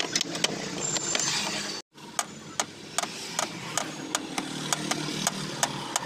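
Hyundai Santro Xing engine running, heard from inside the cabin while driving, with a steady engine and road hum. After a brief cut, a regular ticking comes in over the hum, about two to three ticks a second.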